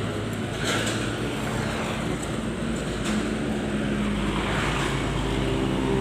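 Road traffic going by: steady engine hum and tyre noise from passing cars and motorcycles.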